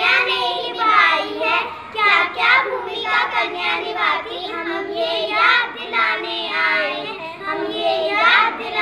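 A group of young children singing together in Hindi, their voices running on without a break.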